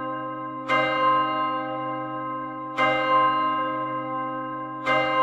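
A deep bell struck three times, about two seconds apart, each stroke ringing on and slowly fading. It forms an instrumental break in the background music.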